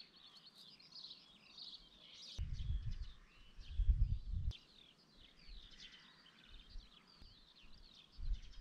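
Birds singing, a steady run of quick high chirps and warbles. Low gusts of wind buffet the microphone from about two and a half to four and a half seconds in, and again briefly near the end.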